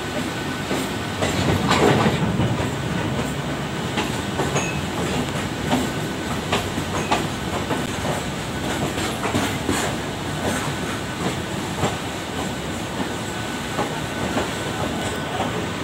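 Goods train of open freight wagons running close by, with a steady rumble and the clickety-clack of steel wheels over rail joints, heard from alongside on a moving train; loudest about two seconds in.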